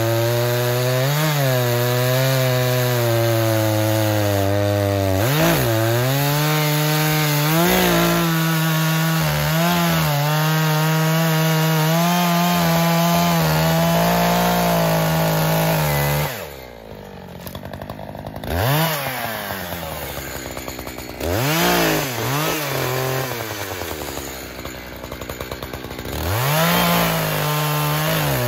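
Echo CS-4510 two-stroke chainsaw cutting through logs at steady high revs. About sixteen seconds in, it drops back to a lower idle with several short throttle blips, then runs up to full revs again near the end to start the next cut.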